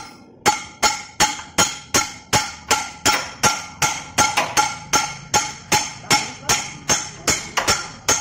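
Steady, evenly paced hammer blows on steel, about two or three a second, each ringing with a metallic tone, struck on a propeller-shaft universal joint.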